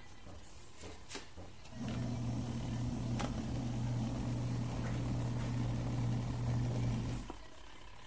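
Mini portable washing machine's motor humming steadily as it churns a soapy wash. It starts a little under two seconds in after a pause, runs about five and a half seconds, then stops, the run-and-pause pattern of a wash cycle.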